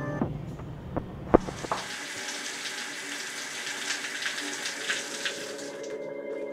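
A few sharp clicks, then water running from a tap for about four and a half seconds with a steady, spattering hiss that stops shortly before the end.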